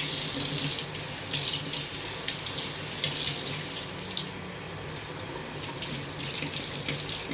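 Tap water running into a sink while fish is rinsed clean under it, the splashing rising and falling, and quieter for a stretch around the middle.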